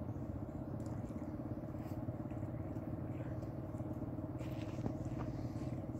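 An engine running steadily at an even speed, with a fast regular firing pulse.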